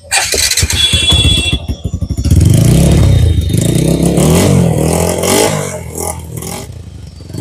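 TVS Apache RTR 160 4V's single-cylinder four-stroke engine starting up through an Akrapovič-style carbon-tipped slip-on silencer held onto the exhaust, then revved several times with the pitch rising and falling before it eases back toward idle near the end.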